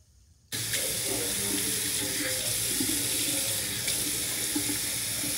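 Tap running into a sink while water is splashed up to rinse cleanser off the face. The water sound cuts in suddenly about half a second in, after a moment of dead silence, and then runs steadily.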